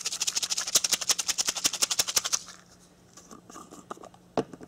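A small lidded container holding exploding-target mix with aquarium gravel, shaken hard and fast: a rapid, even rattle that stops abruptly about halfway through. A single sharp knock comes near the end.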